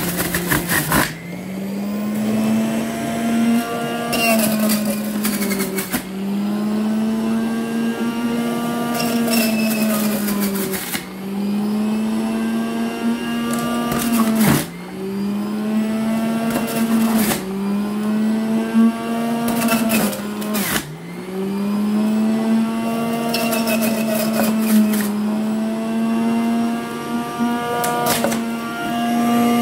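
Electric centrifugal juicer running as produce is pushed down its feed chute. The motor hum drops in pitch each time a piece meets the spinning cutter and climbs back as it clears, every few seconds, with crunching as the produce is shredded.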